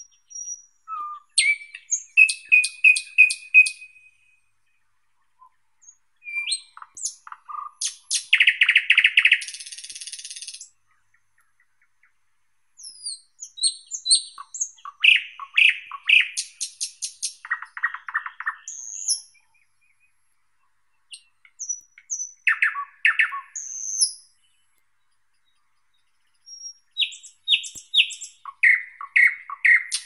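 Thrush nightingale singing: loud phrases of rapidly repeated notes and clicking trills, with a dense rattle about a third of the way in. The phrases come in five bursts separated by pauses of a second or two.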